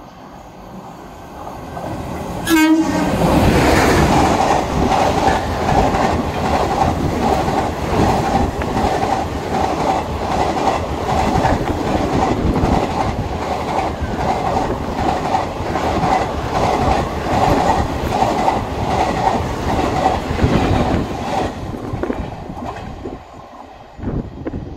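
Indian Railways express train passing at speed close by: a sudden rush of noise about two and a half seconds in, then the coaches' wheels clattering rapidly over the rail joints for about eighteen seconds before the sound fades away.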